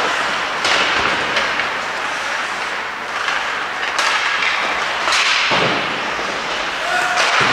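Ice hockey play on the rink: several sharp clacks and thuds of sticks, puck and players hitting the boards and glass, over a steady hiss of skates on the ice.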